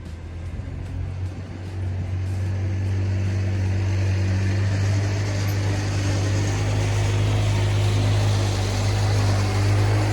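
A motor vehicle's engine running with a steady low drone, while a rushing noise builds over the first few seconds and then holds.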